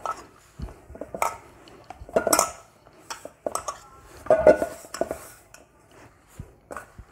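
Stainless steel mixing bowl knocking and scraping on a stone counter as stiff wheat-flour and semolina dough is kneaded in it by hand: irregular knocks with brief metallic ringing, the loudest about two and four and a half seconds in.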